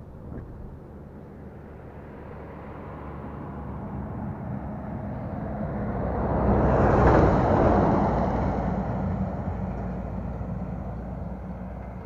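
A truck passing on the road: its engine and tyre noise build to a peak about seven seconds in, then fade away.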